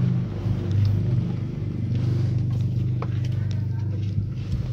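Diesel truck engine idling steadily, with a few light clicks from handling the loose wiring.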